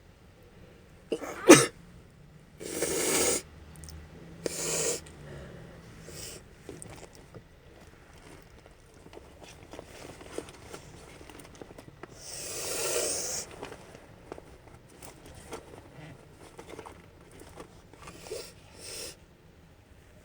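A woman sneezing hard without stifling it. The sharpest and loudest sneeze comes about a second and a half in, with further noisy sneeze bursts and breaths soon after, a long one near the middle and two smaller ones near the end. Small sniffs and breaths come between them, from a runny nose she has not blown.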